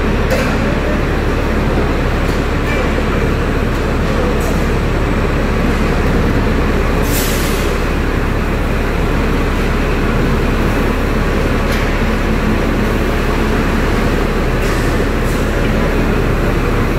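Overhead gantry crane hoist running steadily as it lifts a steel manhole casting mould, within a loud, constant machinery din with a low hum. A short hiss comes about seven seconds in.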